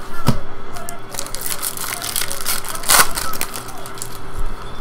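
A stack of glossy Bowman baseball cards being shuffled and flipped in the hand, the cards sliding and snapping against each other in a quick run of crisp rustles and clicks, loudest about three seconds in.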